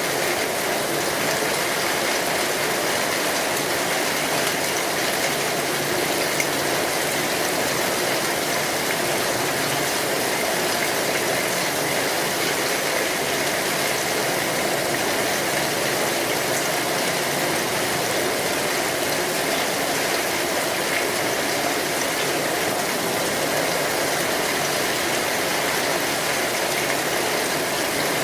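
Steady rain falling on an umbrella, an even hiss with no breaks.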